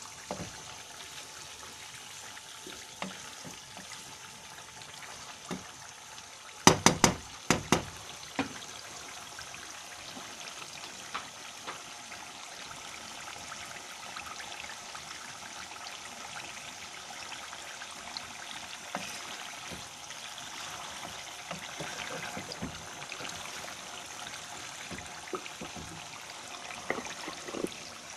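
Chicken livers frying in their juices in a nonstick pan: a steady sizzle, with a quick run of sharp knocks about seven seconds in.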